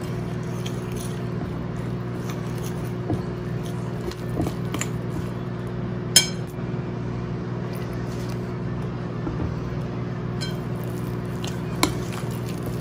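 Metal spoon stirring thick flour-and-milk batter in a glass bowl, clinking against the glass every so often, with the sharpest clink about six seconds in. A steady low hum runs underneath.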